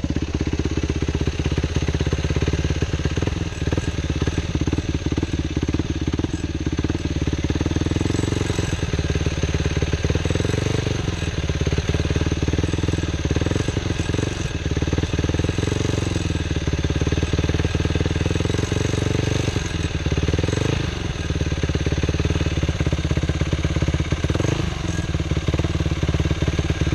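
Yamaha WR450F's single-cylinder four-stroke engine running steadily, with a few brief rises in revs. The owner is showing a rattling noise that appears at higher RPM; he suspects it comes from the timing chain or inside the crankcase.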